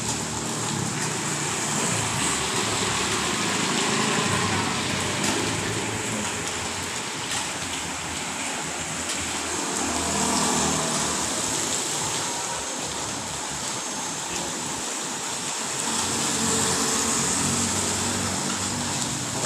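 Steady hiss of heavy rain with motor vehicles passing on a wet road, the sound swelling three times as they go by.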